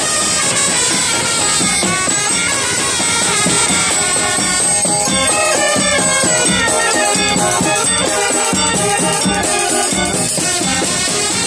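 Indian brass band playing a tune: trumpets, saxophones and a clarinet carry the melody in held notes over a steady drum and percussion beat.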